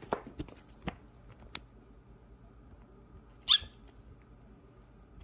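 Bengal kitten giving a short, high, rising squeak-like chirp about three and a half seconds in, with a few light taps in the first second and a half.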